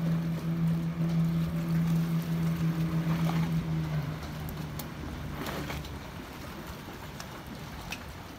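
Speedboat engine running at speed with a steady low drone that fades away about four to six seconds in, leaving the hiss of water and wind.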